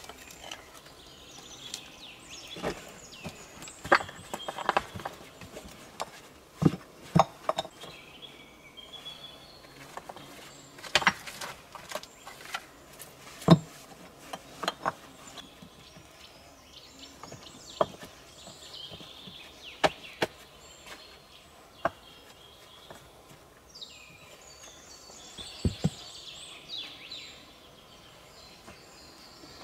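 Flat stones clacking and knocking against each other and the ground as they are laid one by one into the floor of a dug pit, a sharp knock every second or few. Birds chirp in the background at times.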